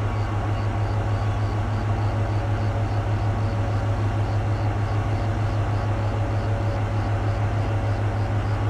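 Container freight wagons rolling slowly past during shunting, over a steady low drone from the diesel shunting locomotive's engine. A faint even pulsing, about three beats a second, runs through it.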